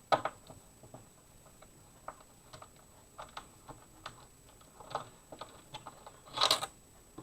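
Irregular small clicks and taps of a T10 Torx screwdriver and hands on an Xbox One S's plastic casing as its screws are taken out, with a louder, longer rattle about six and a half seconds in.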